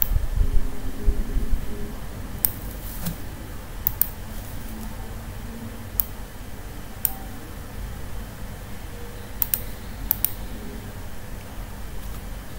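Sharp, scattered clicks of a computer mouse and keyboard, several coming in quick double-click pairs. They sit over a steady low background rumble that is heavier in the first two seconds.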